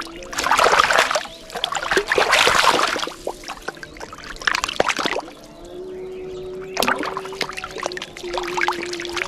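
A hooked catfish thrashing at the surface of shallow water: bursts of splashing with short lulls between, the loudest and longest in the first three seconds.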